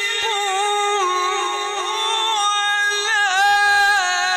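A man reciting the Quran in the melodic tajwid style, drawing out long held notes that waver in pitch and break into quick ornamental trills.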